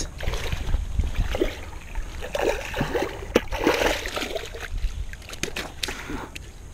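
Small bass splashing in the shallows as it is drawn in by hand on the line, with sharp clicks and knocks that come more often near the end.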